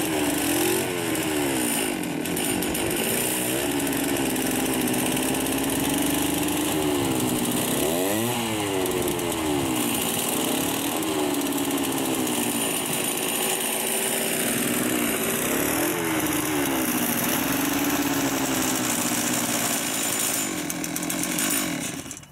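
Small petrol engine of a lure-coursing machine running hard and revving up and down again and again as it reels the lure across the field, then cutting off abruptly near the end.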